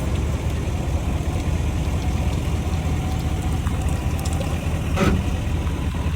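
Old 60 hp Mercury outboard running steadily at low speed, a steady low drone. The engine has no working water pump and is running hot. One short knock comes about five seconds in.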